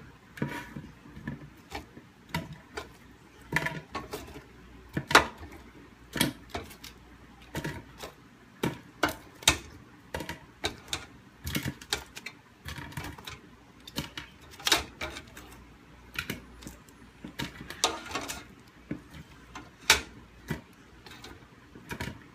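Irregular clicks and clacks, roughly one or two a second, as crispy air-fried chicken wings are moved from the air fryer rack into a large bowl, knocking against the bowl and each other.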